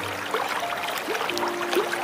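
Small waterfall splashing and trickling steadily, with a soft melody of long held notes over it.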